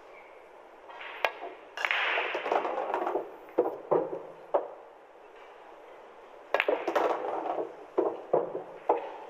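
Pool cue striking the cue ball about a second in, then billiard balls clacking and rattling. A second run of sharp clacks comes later.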